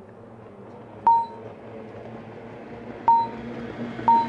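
Boat-race start-signal beeps counting down to a flying start: three short electronic beeps at one mid pitch, the first about a second in, the next two seconds later and the last a second after that, over a faint steady background hum.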